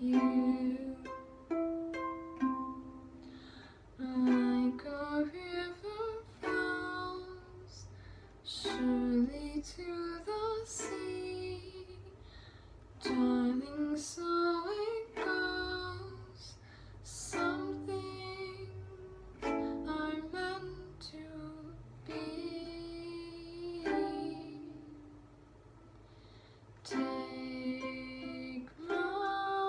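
A ukulele strummed in chords, with a girl's voice singing along in phrases broken by short pauses.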